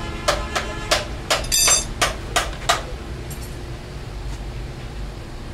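A hammer striking metal in quick, ringing blows, about three a second, eight or nine in all, stopping about three seconds in.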